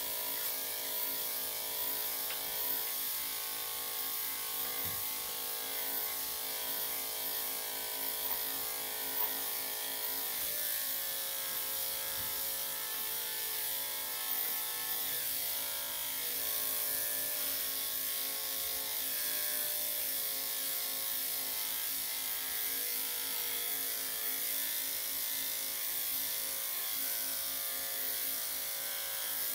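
Electric dog grooming clippers fitted with a #3 3/4 blade, running steadily with a constant buzz as they are pushed through the dog's fur.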